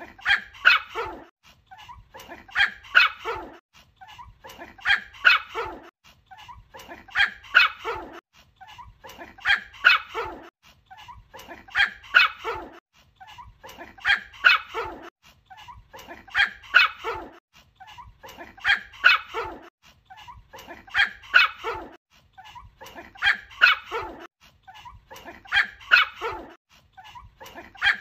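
Small white Pomeranian barking in short bursts of three or four quick barks, the bursts repeating regularly about every two seconds.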